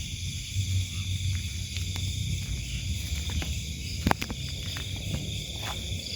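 Steady high chorus of night insects such as crickets, several unbroken shrill tones held throughout, with scattered light clicks and a sharper knock about four seconds in.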